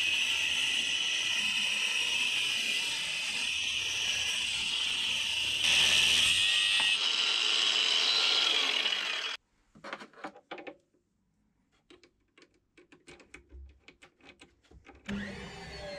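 A power tool runs steadily for about nine seconds, a little louder for a moment around the middle, then cuts off abruptly. Scattered light clicks and taps follow.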